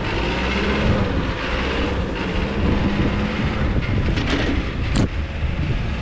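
Cat 420F backhoe loader's diesel engine running as the machine drives across the yard, heard through wind buffeting the microphone, with two sharp ticks about a second apart near the end.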